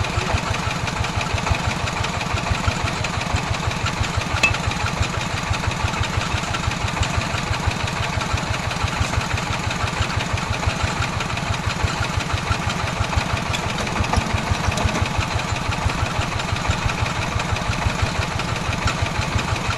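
Small engine of a well-drilling machine running steadily, with an even rapid pulsing beat.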